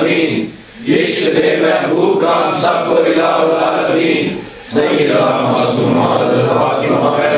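Group of men chanting a Sufi devotional litany together in unison, with two short breaks, about half a second in and about four and a half seconds in.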